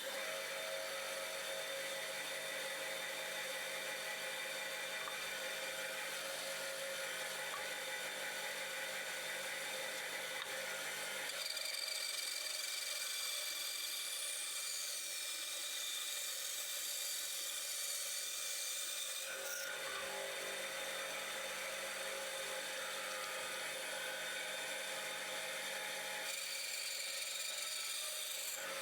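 Steady whir of a small motor-driven machine, its pitch shifting in steps every several seconds.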